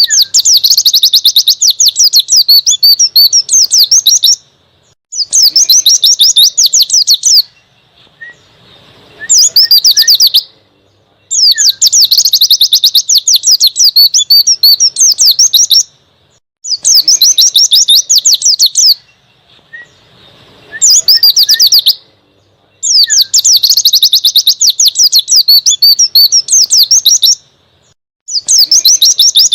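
White-eye (pleci) singing in the wild 'ngalas' style: loud phrases of rapid, high twittering notes, each a few seconds long, repeated over and over with short pauses between them.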